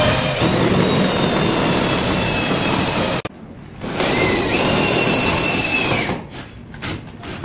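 Cordless drill running in two bursts, about three seconds then about two seconds with a short pause between, each with a high motor whine. It is working at the fixing of an electronic lock on the top of a fridge door.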